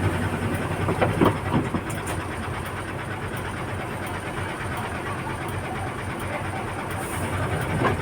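Backhoe's diesel engine running steadily, with a few short knocks about a second in.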